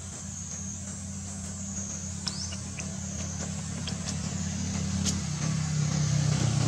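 A vehicle engine running at a steady pitch, growing gradually louder as it comes closer, with a steady high-pitched hiss above it.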